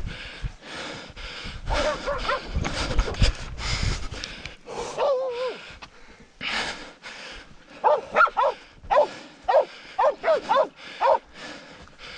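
Pig-hunting dogs barking in a quick run of short barks in the second half, the sound of dogs bailing up a wild pig. Under it, a steady run of footfalls through scrub.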